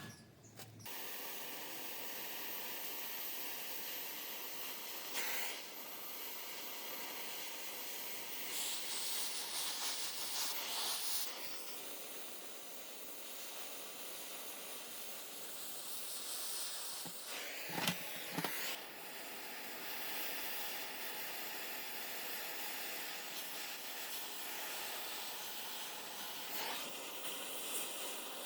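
Steady spraying hiss that swells a little now and then, with a few knocks about eighteen seconds in.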